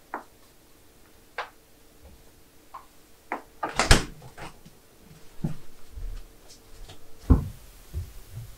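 Bottles clinking in a refrigerator door shelf as a plastic bottle is lifted out, then the fridge door shutting with a thud about four seconds in. Near the end, a plastic bottle of sparkling water is knocked down onto a wooden tabletop.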